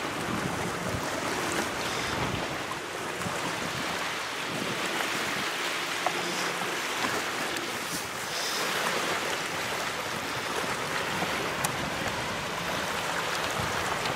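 Small waves lapping and washing onto a sandy shoreline, with wind on the microphone adding a low rumble during the first couple of seconds.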